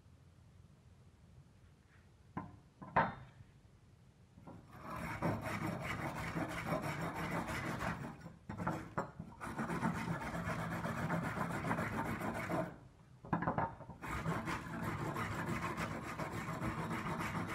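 A rusty steel knife blade is scrubbed by hand with a block, scouring off the rust. The rubbing is steady and comes in three long spells, starting about five seconds in. A few short knocks fall in the gaps between spells and just before the first one.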